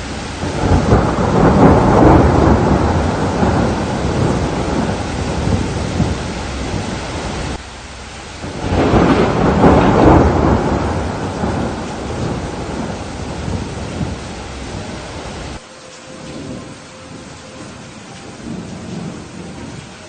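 Rain falling steadily under two long rolls of thunder, the first building about a second in and the second about eight seconds in. Each roll cuts off abruptly, and the second leaves only quieter rain.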